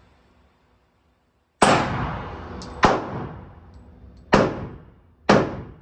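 Four gunshots fired at a shooting range, spaced about a second apart, each sharp crack followed by a short fading ring.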